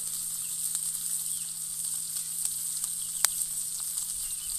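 Haddock frying in butter in a cast-iron skillet over a campfire: a steady, high sizzle with small crackles throughout, and one sharp click about three seconds in.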